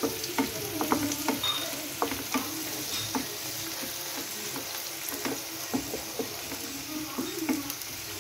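Chopped onions, green chillies and capsicum frying in oil in a frying pan while a wooden spatula stirs them: a steady sizzle with irregular scrapes and knocks of the spatula against the pan.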